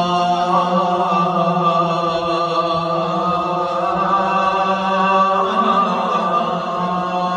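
Arabic Islamic vocal chant: a single voice holds one long drawn-out note for about five seconds, then moves into a wavering, ornamented run.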